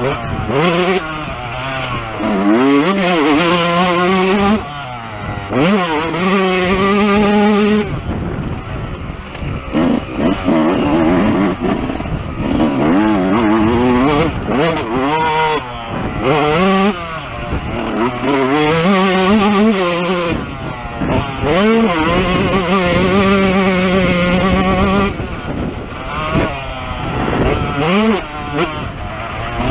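Yamaha YZ125's 125 cc two-stroke single-cylinder engine under hard riding, its pitch repeatedly climbing and dropping back as the throttle is opened and shut through the gears. Twice it holds a long steady high-revving note.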